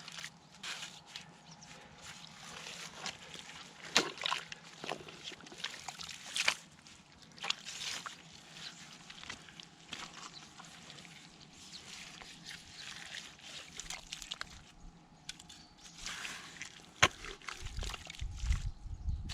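Water and wet mud sloshing in a waterlogged clay field, with irregular squelches and splashes. A low rumble comes near the end.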